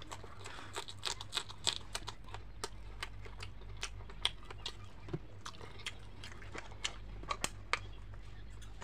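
Crunching and chewing of a raw green chilli: sharp, irregular crunches, thick in the first couple of seconds, then sparser.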